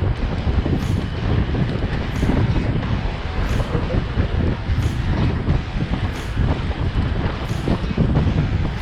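Wind buffeting a clip-on microphone with low road rumble while riding a road bike, with a faint hiss recurring about every second and a half.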